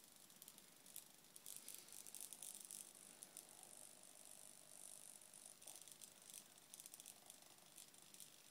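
Faint bursts of high-pitched buzzing and clicking from a small RC servo turning a scale pilot figure's head, heard twice.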